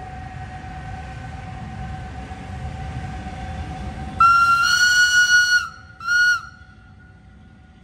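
Historic SBB electric locomotive's whistle: one long blast and then one short blast of the same high pitch, after a low rumble of a train running.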